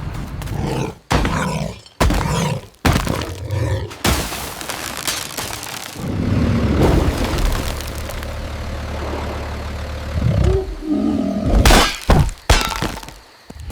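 A run of sound-effect crashes and breaking, shattering impacts. Sharp hits come in the first three seconds and again near the end, with a long rumbling, noisy crash between them.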